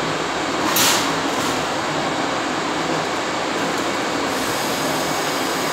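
Steady loud whir of cooling fans and machinery in an equipment room, with a faint low hum underneath. There is a brief sharp hiss-like burst a little under a second in.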